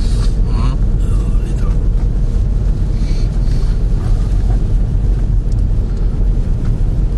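Steady low rumble of a car's engine and tyres on a snow-covered road, heard from inside the cabin while driving.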